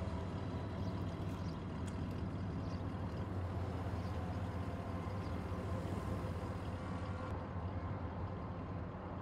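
Steady low rumble of an idling car engine, even and unchanging.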